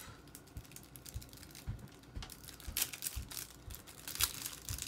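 Thin plastic wrapping crinkling and rustling in the hands as it is peeled off a small pin, with scattered light clicks and a few louder crinkles about three and four seconds in.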